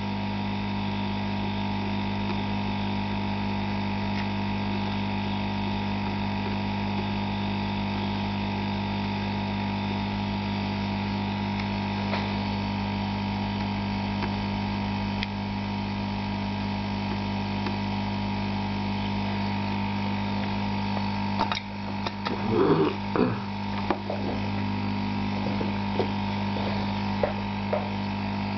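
Hot-air rework station's blower running with a steady hum. About three quarters of the way through, a cluster of small clicks and knocks from handling the tools and board, with a few more ticks shortly after.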